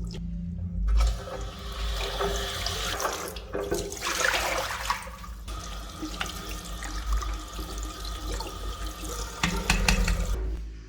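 Tap water running and splashing into a sink while the wet-dry vacuum's dirty water tank is rinsed out, with a couple of brief breaks in the flow.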